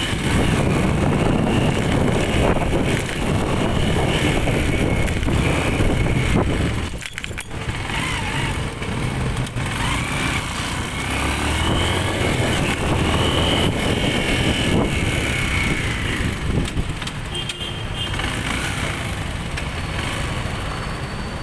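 Motorcycle engine running while riding through city traffic, with road and wind noise on the microphone; the sound drops briefly about seven seconds in.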